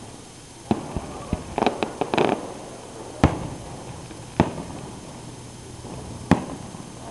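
Aerial fireworks shells bursting: sharp bangs every second or two, with a quick cluster of crackling pops about two seconds in.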